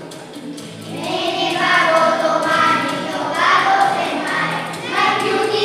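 A chorus of children singing together in long held notes, picking up after a short quieter moment about a second in.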